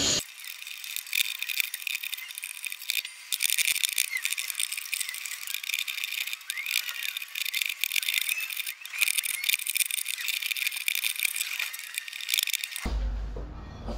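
Wood chisel paring shavings off a wooden axe handle: a fast, continuous run of thin, high-pitched scraping and clicking cuts. It breaks off near the end, where a low hum takes over.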